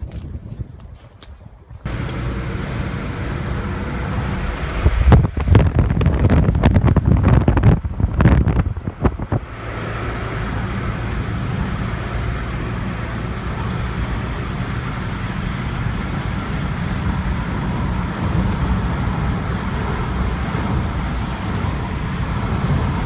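Car engine and road noise heard from inside a moving car, starting about two seconds in and then steady, with a louder stretch of low rumble lasting a few seconds roughly a quarter of the way through.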